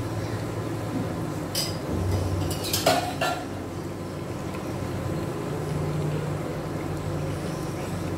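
Veg rolls frying in hot ghee in a non-stick kadhai, a steady sizzle over a low hum, while a slotted spatula clicks and scrapes against the pan, sharpest about three seconds in, as the rolls are turned.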